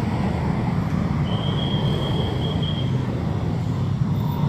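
Steady road traffic noise from a busy city street, a dense low rumble of passing cars, with a thin high-pitched tone held for about two seconds in the middle.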